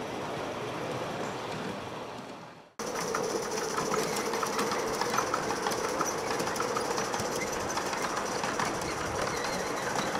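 G-gauge model trains running on outdoor track, a steady running sound with wheels clicking over the rail joints. The sound fades out and cuts off just before three seconds in, then comes back louder with a live steam Mikado locomotive hauling streamliner cars, a steady tone under the clicking.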